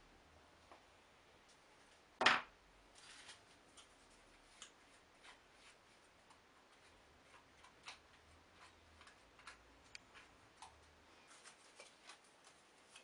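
Thin wood veneer strips and a glue bottle being handled on a workbench during a glue-up: scattered soft clicks and rustles, with one louder, short rasping sound about two seconds in.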